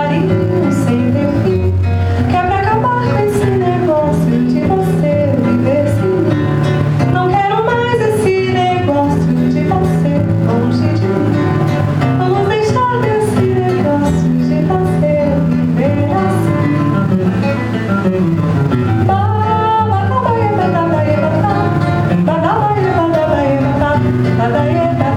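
A woman singing a Brazilian song accompanied by a violão (nylon-string acoustic guitar), the guitar plucking chords and a bass line under her melody.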